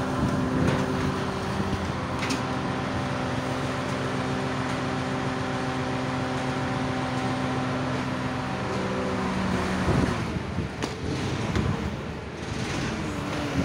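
A heavy vehicle's engine running steadily at idle. Its even hum drops away about ten seconds in, leaving rougher noise and a few short knocks.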